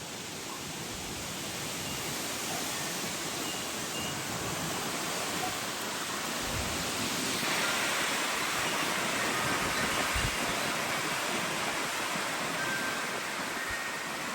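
Strong gusty wind rushing, building to its strongest about halfway through, with a couple of low thumps of wind buffeting the microphone.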